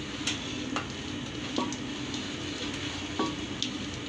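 Steel rolling pin rolled over a spread layer of hot peanut and jaggery chikki mass, with a handful of scattered clicks and knocks over a steady low hum.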